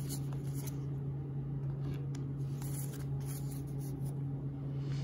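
Baseball cards being handled and stood up on a wooden table: faint slides and light taps of card stock, over a steady low hum.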